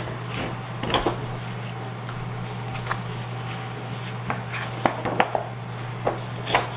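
Pages of a 12x12 scrapbook paper pad being turned and handled: scattered paper rustles and light taps over a steady low hum.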